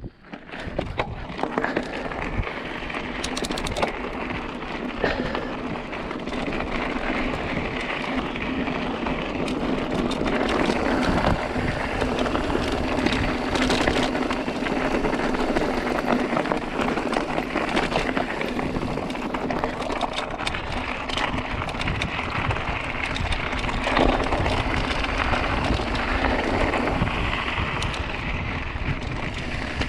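Mountain bike riding down a rough, stony trail: continuous tyre crunch over loose stones with the bike rattling and clattering over rocks.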